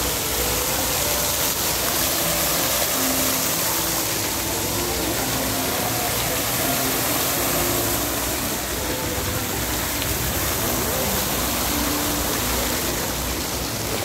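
Many fountain jets falling back into a pool, making a steady rushing splash of water with no breaks.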